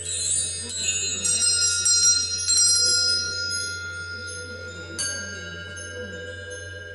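A set of hanging metal tube wind chimes swept by hand, many high tones ringing together and slowly dying away, with a second, lighter stroke about five seconds in.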